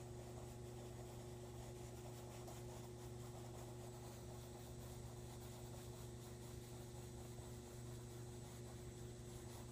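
Faint scratching of a pencil drawing on paper, over a steady low electrical hum.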